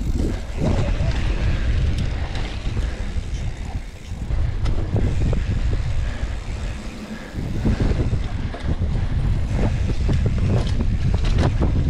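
Wind buffeting an action camera's microphone at riding speed on a mountain-bike descent, with the bike's frequent knocks and rattles over rough trail. The noise eases briefly twice, about four and seven seconds in.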